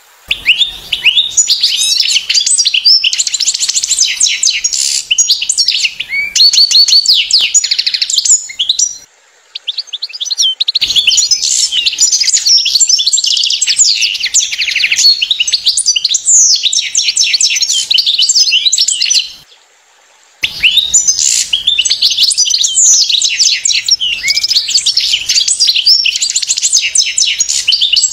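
European goldfinch twittering song: fast, tinkling runs of high notes, with two short breaks.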